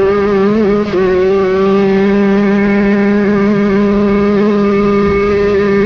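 Jawa 50 moped's single-cylinder two-stroke engine held at high, steady revs, with a brief dip in pitch about a second in.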